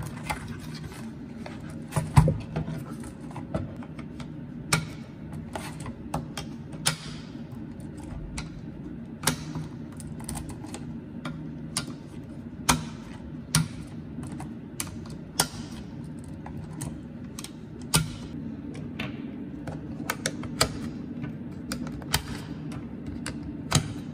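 9mm Luger cartridges being pressed one at a time into a polymer STANAG-pattern rifle magazine: a string of irregular sharp clicks, roughly one every second, over a steady low hum.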